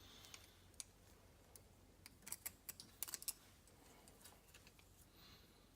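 Faint, scattered clicks and light taps of small metal parts being handled while fitting a universal joint, with a quick run of clicks two to three seconds in.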